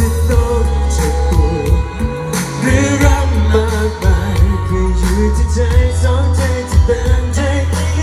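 Live pop song played loud through a concert PA system: a male singer's voice over heavy, steady bass and drums.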